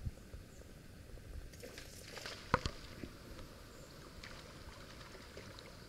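Quiet outdoor river ambience with a handful of light knocks and clicks near the middle, the sharpest about two and a half seconds in.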